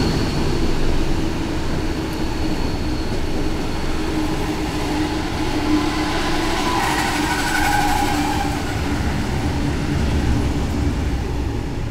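Loaded container wagons of a freight train rolling past: a steady rumble of steel wheels on the rails, with faint squealing tones coming and going.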